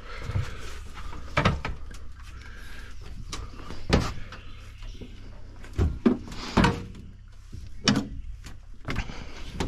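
A string of irregular hollow knocks and clunks on an aluminum jon boat's deck and hull as someone moves about the boat handling a dip net and a long pole.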